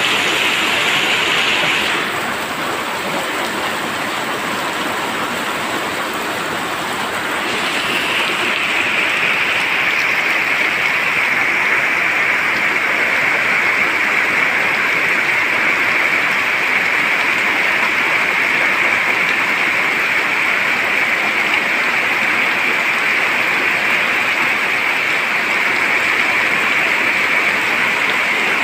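Rain falling hard onto standing water over muddy ground: a steady, dense hiss of drops splashing into the puddled surface. It eases a little about two seconds in and picks back up at around seven seconds.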